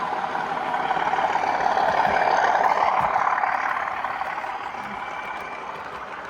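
A model train running past on a layout: its running noise grows louder, peaks about two and a half seconds in, then fades as it moves away.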